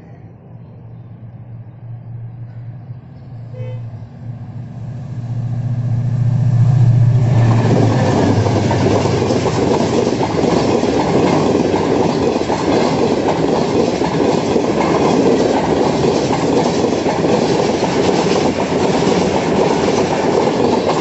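Diesel locomotive engine hum growing louder as a Pakistan Railways express approaches. About seven seconds in it gives way to the loud, steady rush and clatter of passenger coach wheels on the rails as the train passes at speed close by.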